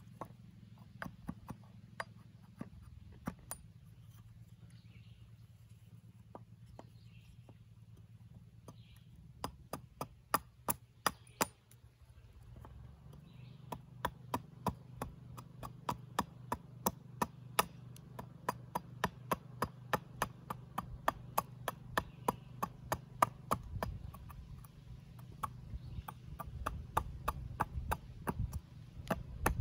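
Carving hatchet chopping into a wooden spoon blank: a few scattered sharp blows and a quick burst of them at first, then from about halfway a steady run of strikes, two or three a second.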